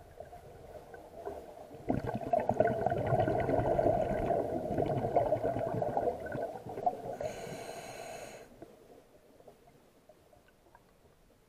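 Scuba diver's breath through a regulator underwater: about two seconds in, a long rush of crackling exhaust bubbles lasting some six seconds, then a short hiss from the regulator as the next breath is drawn, before it falls quiet.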